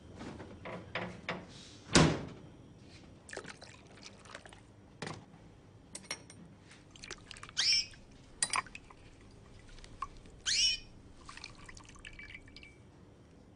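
Kitchen handling sounds: several clicks and knocks of containers being moved, the loudest a sharp knock about two seconds in. Later come liquid sounds in a cup of tea with a tea bag: drips and two short, quickly rising plinks, about halfway through and again about three seconds later.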